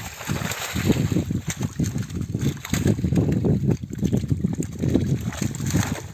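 Shallow muddy water splashing in quick, irregular slaps as a netful of live carp thrash in the mesh while the net is hauled in by hand.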